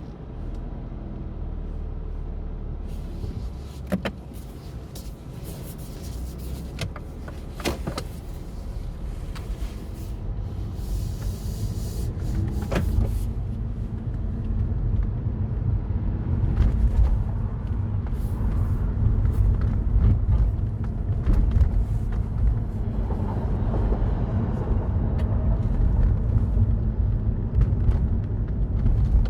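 A Mini Cooper Cabrio driving, heard from the driver's seat: steady engine and road rumble. The rumble grows louder from about a third of the way in as the car picks up speed. A few sharp clicks or knocks come in the first half.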